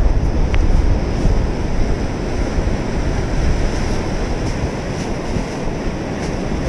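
Steady rumble of wind buffeting the microphone, mixed with the wash of breaking surf.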